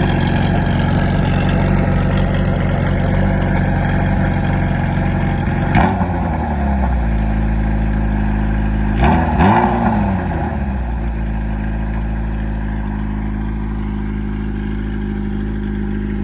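Kawasaki Zephyr 750's air-cooled inline-four idling through an aftermarket short-pipe exhaust with a brass silencer. The throttle is blipped once about six seconds in and twice more around nine to ten seconds, each rev rising and falling quickly before the engine settles back to idle.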